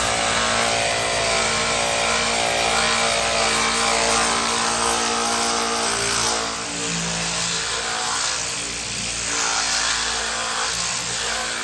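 Heavy electric disc sander with a 40-grit disc grinding epoxy paint and gelcoat off a fiberglass boat hull. The motor whines steadily under the grinding hiss and dips a little about halfway through as the pressure on the hull changes.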